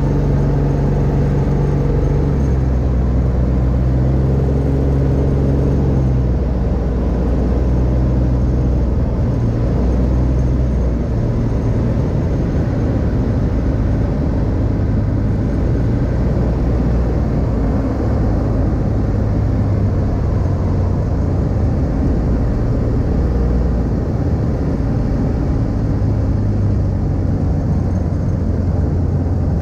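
Rotax 582 two-stroke engine of an X-Air microlight running with its propeller turning, with air rushing past. The engine note shifts in pitch a few times in the first several seconds as power changes, then runs fairly steadily.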